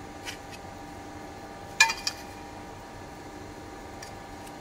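A metal pipe clinks sharply about two seconds in, with a lighter tap just after and a small click near the start. Under it runs the steady hum of the hydraulic pipe shrinking machine's pump motor.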